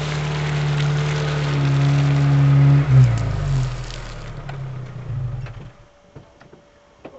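Vauxhall Frontera 4x4's engine running at steady revs close by, over a rushing noise from tyres and wet ground. A little before three seconds in the note changes, and the engine then fades away, gone by about six seconds.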